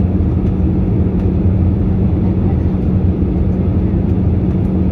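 Steady airliner cabin noise beside the wing on descent: the drone of the turbofan engine and rushing airflow, with a steady low hum over a deep rumble.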